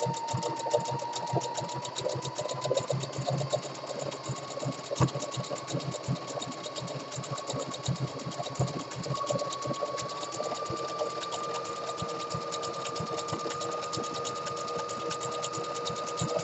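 Brother Project Runway CE1100 home sewing machine running continuously, stitching a triple stretch stitch seam through thick fleece. The needle strokes come rapid and even, and the motor's whine creeps slightly higher in pitch as it goes.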